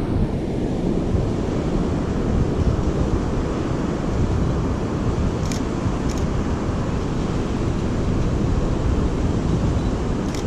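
Steady wind rumbling on the microphone over the sound of ocean surf. The Canon DSLR's shutter clicks twice about halfway through and once near the end.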